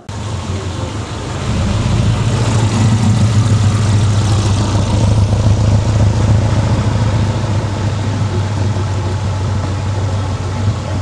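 Dune buggy engine running with a steady low drone, building up over the first two seconds and then holding level.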